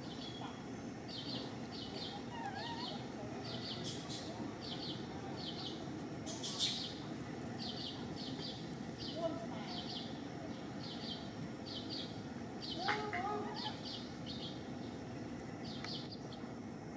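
Small birds' short high chirps repeating about twice a second over a steady outdoor background hum, with a louder, sharper chirp about six and a half seconds in and a few faint rising squeaks.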